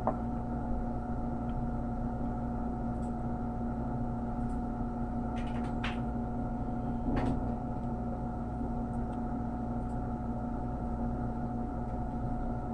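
Steady hum of a small machine at the soldering bench, holding several fixed tones, with a few faint clicks of small parts being handled about six and seven seconds in.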